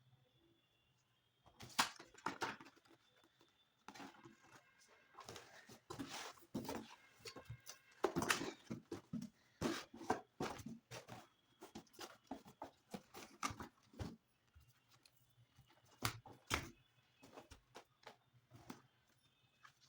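Books and their packaging being handled: irregular rustling, taps and light knocks, busiest in the middle.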